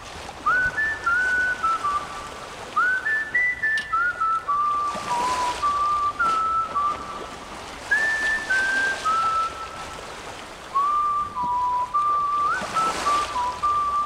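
Whistled melody in outro music: phrases of single clear notes stepping up and down, some starting with a short upward slide, with two soft rushing swells behind them.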